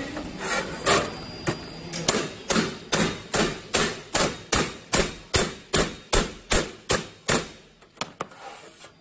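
A hammer striking a welded copper-plated stud on a steel sheet again and again, about two or three sharp blows a second, bending the stud over to test the weld. A couple of lighter taps close the run near the end.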